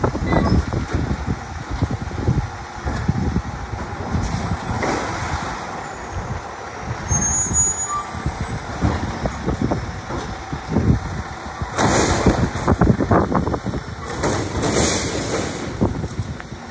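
Labrie Automizer automated side-loader garbage truck at work: engine running and revving as it moves up and drives the lifting arm, with a string of knocks and clanks as a trash cart is gripped and dumped. Two loud hisses of air come near the end.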